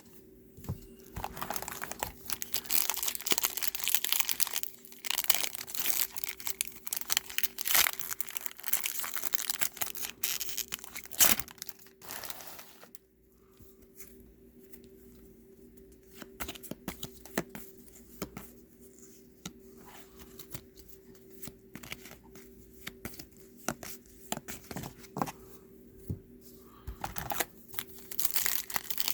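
Foil trading-card pack wrappers being torn open and crinkled, busiest in the first twelve seconds, then softer rustling and scattered small clicks of handling. A faint steady hum lies underneath.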